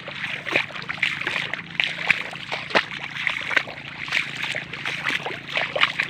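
Footsteps wading through the shallow water and mud of a flooded rice paddy: irregular splashes and sloshes, roughly one or two a second.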